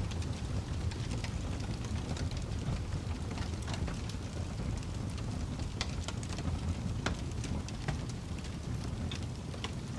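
Burning firewood crackling: a steady low rumble with scattered sharp pops and snaps.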